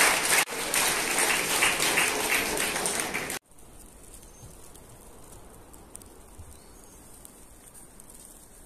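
Theatre audience applauding, dense clapping that cuts off abruptly about three and a half seconds in, followed by a faint steady hiss.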